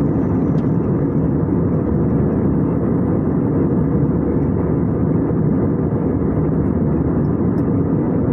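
Steady roar of an airliner's engines and airflow heard from inside the passenger cabin in flight, an even, unbroken rush of noise.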